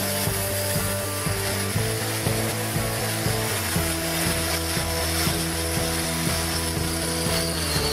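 Electric angle grinder running with its disc pressed against the rusty steel shell of an M40 helmet, grinding off rust in a steady high hiss.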